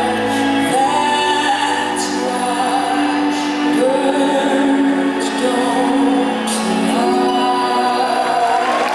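Live performance of a slow pop ballad: a female lead singer holds long notes with vibrato over an instrumental backing, amplified through an arena sound system.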